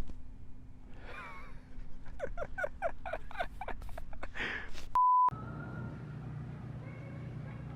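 A rapid run of short, repeated vocal sounds, then a censor bleep: a pure beep lasting about a third of a second, about five seconds in. After the bleep comes a steady low hum.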